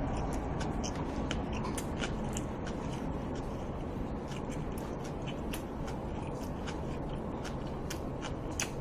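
A person chewing food close to the microphone with the mouth closed: scattered small wet clicks and smacks over a steady low background hum.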